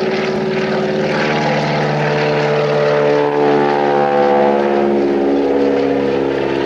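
Single-engine propeller bush plane taking off, its engine and propeller running at full power. The pitch sinks a little through the middle.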